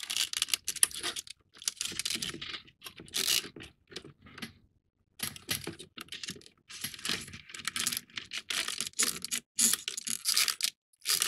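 Cardboard model-kit pieces rustling, clicking and scraping as hands push a ratline rigging piece into the ship's masts. The sound comes in irregular bursts, with a short pause about five seconds in.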